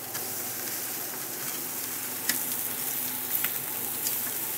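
Chicken thighs and burgers sizzling steadily on a very hot charcoal grill grate, with a few sharp crackling pops in the second half.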